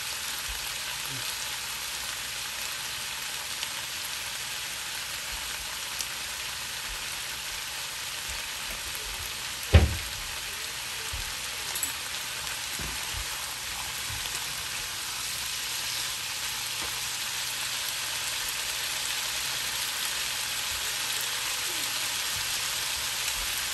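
Chopped bottle-gourd skin, broccoli and peas frying in a pan, a steady sizzle throughout, with a single sharp knock about ten seconds in.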